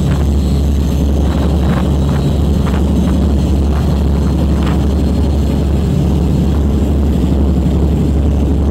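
Steady, loud drone of the CRM 18DSS high-speed diesel engines of Swedish T42-class torpedo boats running at speed, with the rush of their wash. A few brief bursts of noise cut through the drone near the start and about halfway through.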